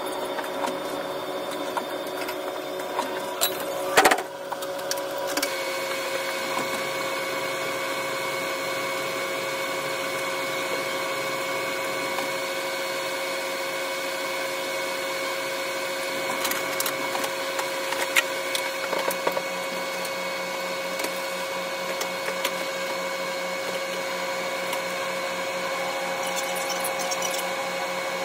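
KiHa 185 series diesel railcar running, its cab sound played back at six times speed: the engine drone raised to a steady high hum with several held tones, over a rapid clatter of wheels on the track, with one sharp knock about four seconds in.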